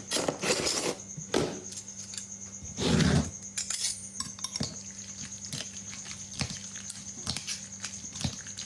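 Metal utensils clinking and knocking against dishes and cookware in scattered, irregular strikes, with a louder clatter about three seconds in.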